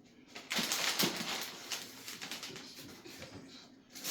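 Rustling and crinkling of packaging handled by hand, a dense run of small crackles that starts about half a second in and stops just before the end.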